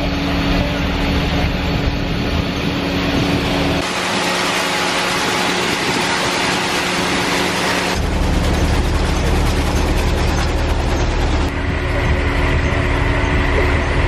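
Engine of a lettuce harvesting rig running steadily: a low hum over a broad rushing noise. The sound shifts abruptly about four, eight and eleven seconds in.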